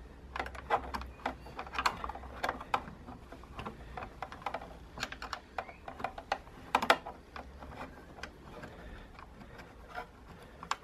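Small ratcheting ring spanner clicking in short irregular runs as a nut is run onto a screen-bracket bolt, with light metal taps; the loudest click comes about two-thirds of the way through.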